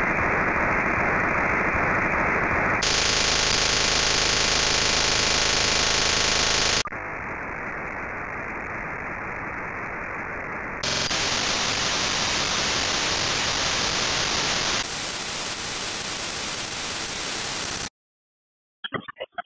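Raw Project 25 digital radio signals played as audio: a steady, harsh static-like hiss from the C4FM trunking control channel, then the C4FM voice channel and the Phase II trunked voice channel. The hiss changes abruptly in tone and loudness several times, stops about eighteen seconds in, and a choppy, stuttering digital signal starts just before the end.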